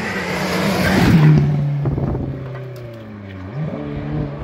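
Hillclimb race car passing close at speed, its engine loudest about a second in. The engine note then falls away for a couple of seconds before the revs rise again near the end.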